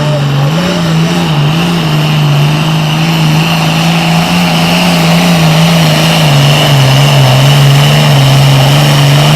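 Super Farm class pulling tractor's diesel engine running flat out under load down the pull track, its steady note wavering slightly in pitch and growing a little louder toward the end.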